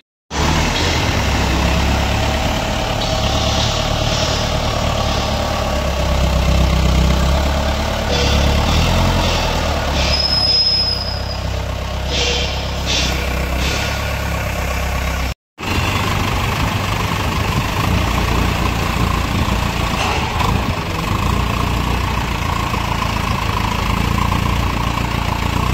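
Forklift engine running steadily during container loading, with a deep low rumble and a short high squeal about ten seconds in.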